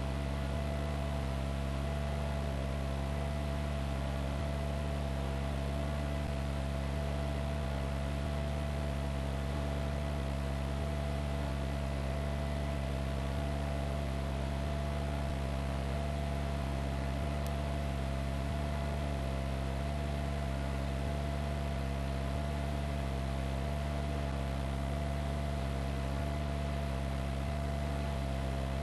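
Steady mechanical drone of a helicopter's engine and rotors, heard from inside the aircraft, with a constant whine over it.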